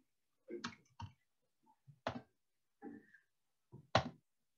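About six scattered clicks and light knocks from work at a computer, at uneven intervals, with dead silence between; the loudest comes near the end.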